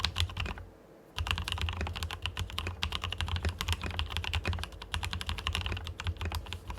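Fast typing on a tenkeyless mechanical keyboard with fully lubricated Cherry MX Red linear switches: a dense run of soft key clacks. The typing pauses briefly about half a second in and then carries on.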